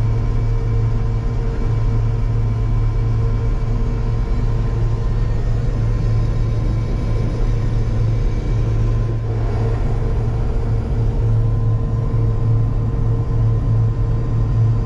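A peanut combine running while it harvests, heard from inside the cab: a loud, steady low drone of engine and threshing machinery, with a constant whine over it.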